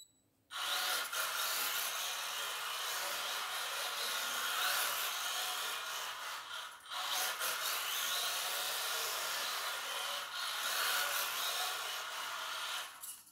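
Rear-wheel-drive mini RC drift car (XRX DPA) sliding sideways on a smooth hard floor, its tyres making a steady scrubbing hiss. The hiss breaks off briefly about seven and ten and a half seconds in.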